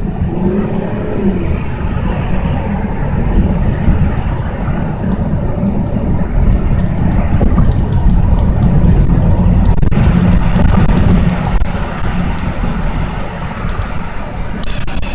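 Steady road noise heard from inside a car cruising at highway speed: a loud, even rumble of engine and tyres.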